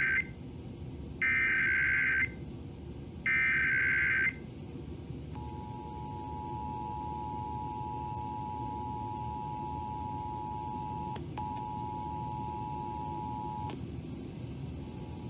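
Emergency Alert System National Periodic Test tones over a broadcast: three short bursts of warbling data tones from the SAME header, then the steady two-tone attention signal. The attention signal cuts out briefly once, stops and comes back near the end. A low hum runs underneath.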